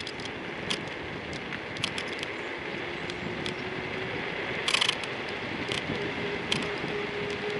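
Kugoo V1 Plus electric scooter riding, with steady road and wind noise and a faint motor whine that rises slightly. The phone holder creaks and clicks in irregular sharp ticks. A tight cluster of clicks about five seconds in is the loudest.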